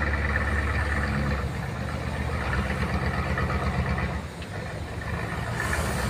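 An engine idling steadily with a low hum.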